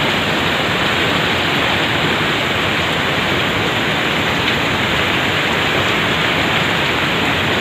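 Heavy storm rain, a loud, steady rushing noise with no breaks.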